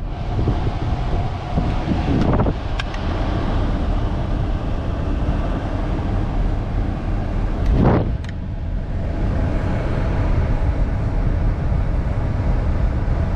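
Truck engine running with steady road or idling rumble, broken by a few short clicks or knocks a little over 2 seconds and about 8 seconds in.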